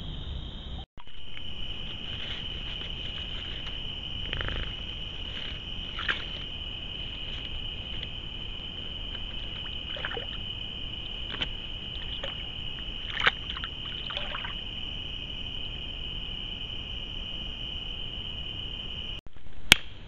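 Steady high-pitched trilling of night insects, with a few short splashes as a beaver moves at the water's edge.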